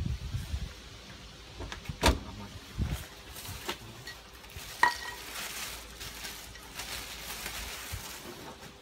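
Scattered sharp knocks and clicks, one with a short metallic ring, over a low rumble at the start and a stretch of hiss in the middle.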